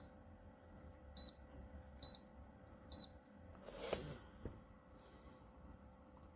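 Short high electronic beeps about once a second, as from buttons pressed on the medisana AH 663 humidifier's control panel, followed by a brief rushing noise and a click near the middle.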